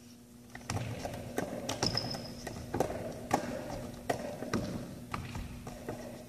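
Basketball dribbled on a hardwood gym floor in freestyle ball-handling moves: sharp, irregular bounces about two a second, starting about half a second in, echoing in the hall.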